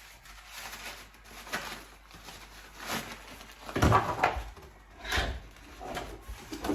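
Parts of a Ninja blender being handled and set down: irregular rustles and knocks, the loudest clunk about four seconds in and another about five seconds in.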